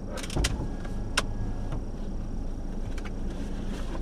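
A vehicle's low steady rumble with a few sharp clicks and taps, the clearest about a second in.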